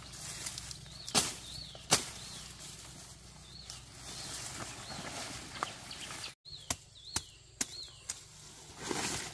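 Machete chopping at a banana bunch and its stalk: two loud sharp chops in the first two seconds, lighter chops later on. A bird repeats a short high call in the background.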